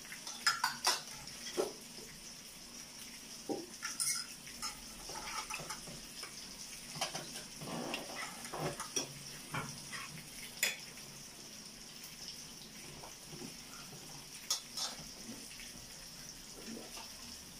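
Forks, tongs and plates clinking and scraping as food is served from a tabletop grill pan, in scattered short clicks over a steady high hiss.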